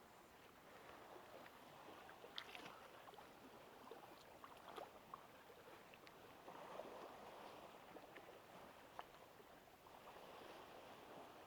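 Faint water lapping at the shore, swelling gently a couple of times, with a few small ticks.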